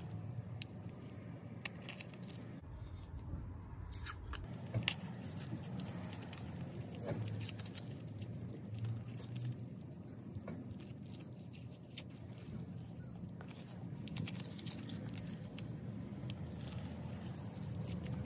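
Handling noise of a metal motorcycle muffler end cap worked by hand: scattered small clicks, taps and scrapes of metal parts, over a steady low background hum.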